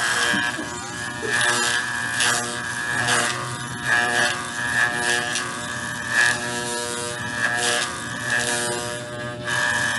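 Corded electric dog clippers humming steadily as they are run through a small dog's long coat, with short rasping strokes each time the blade passes through the hair.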